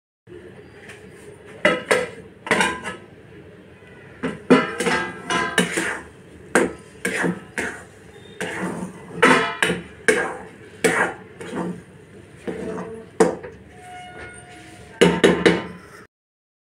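A metal spatula scraping and knocking against a metal kadai as thick, cooked upma is stirred and lifted, in irregular clattering strokes that come in bunches.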